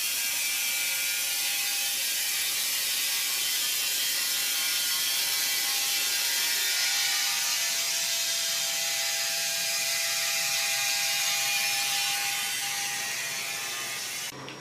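A mill saw cutting through a log: a steady, dense, rattling hiss, with a faint whine in the middle. It cuts off abruptly just before the end.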